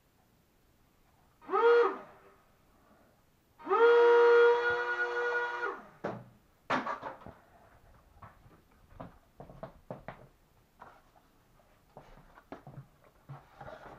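Small electric motors driving a lightweight RC plane's propellers whine briefly, then run for about two seconds, rising in pitch as they spin up and falling away as the power is switched off. Scattered knocks and clicks follow.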